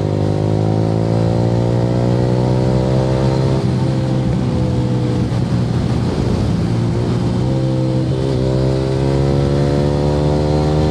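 Yamaha R15 V3's single-cylinder engine through an aftermarket Akrapovic R9 exhaust, under way and accelerating. The pitch climbs, drops at a gear change about four seconds in, eases off, then climbs again through another shift.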